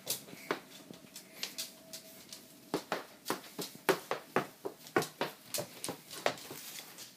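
A miniature horse's hooves clopping on a hard wooden floor as it walks, a few irregular steps a second, more of them in the second half. A faint steady hum in the first couple of seconds.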